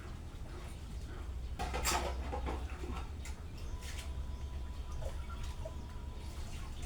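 Scattered rubbing and scraping handling noises over a low steady hum, loudest in a short cluster about two seconds in, with a faint thin steady tone for a few seconds in the middle.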